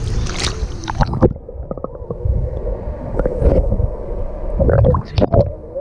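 Muffled sound of a camera plunged under the sea: about a second in, the open-air wind and water noise cuts off and gives way to underwater gurgling and knocks of water against the camera housing, over a steady hum.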